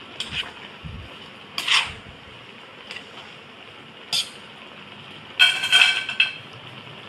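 Metal tongs scraping and clicking against a stainless steel wok as stir-fried noodles and vegetables are tossed, a few separate strokes over a steady hiss. About five and a half seconds in, a louder ringing metallic clatter.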